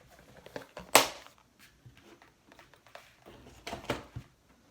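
Handling noise from small plastic press-on nail tips and their packaging: scattered light clicks and rustling, with one brief, louder scrape-like rustle about a second in and another patch of rustling near the end.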